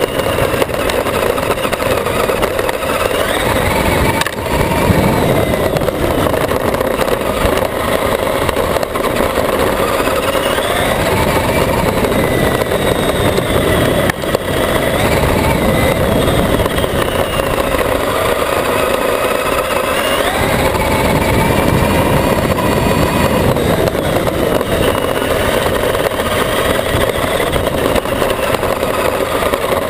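Traxxas E-Maxx electric RC monster truck's motors whining, the pitch rising and falling repeatedly with the throttle, over a rough rumbling noise. Heard from a camera riding on the truck itself.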